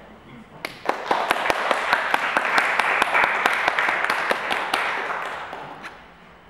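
Audience applauding at the end of a piece. The clapping starts about a second in, builds, then fades away near the end.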